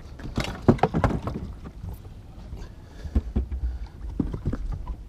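A hooked muskie splashing in the water beside a fishing boat, with a quick run of sharp splashes and knocks in the first second and a half and a few more later. Wind rumbles on the microphone underneath.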